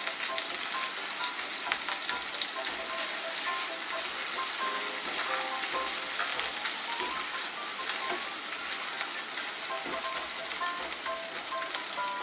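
A wet spice paste of ground cumin, ginger and green chilli with turmeric and salt, sizzling and crackling steadily in hot oil, stirred around the pan with a spatula.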